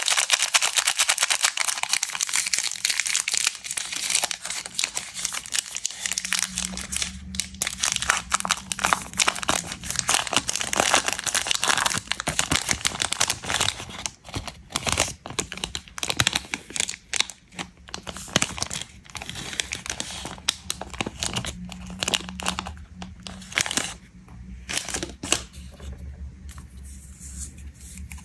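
Plastic wrapper of a Milky Way candy bar crinkling and tearing as it is pulled open by hand. The crinkling is dense at first and turns to sparser bursts about halfway through, as the wrappers are handled more lightly.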